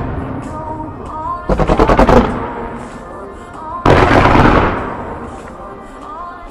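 Fireworks going off over music. About a second and a half in comes a rapid volley of about eight quick bangs. Just before four seconds there is a single loud bang followed by a hiss that fades over about a second and a half.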